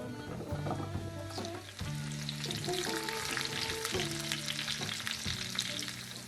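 Mushrooms sautéing in hot bacon fat in a pan, a steady sizzle with crackling that picks up about a second in. Light background music plays underneath.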